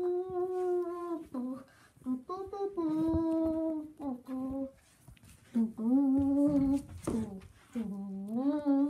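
A person humming a tune: a series of held notes, some sliding down and back up in pitch, with short breaks between them.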